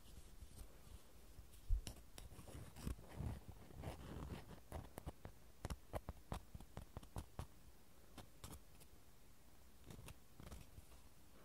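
Faint, irregular clicking and scraping of two wooden ear picks tapped and rubbed together, busiest in the first half and thinning out near the end.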